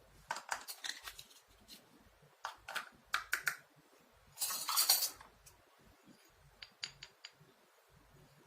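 Small plastic toy kitchen pieces being handled: runs of light clicks and clinks, a short scraping rustle about halfway through, and a few sharp ticks near the end.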